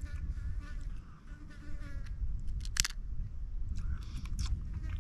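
Flies buzzing close by, with a few sharp clicks and cracks of crab shell being picked apart, over a low rumble of wind on the microphone.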